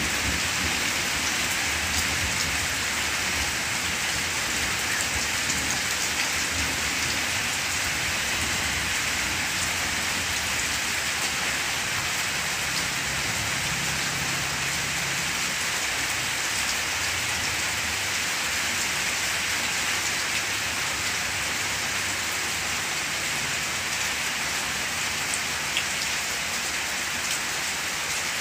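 Steady rain falling on banana plants: an even hiss of rain with scattered sharper drop hits on the leaves.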